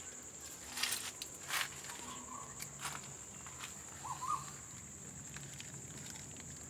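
A steady high-pitched insect drone, with two brief rustles about one and one and a half seconds in and a short bird chirp about four seconds in.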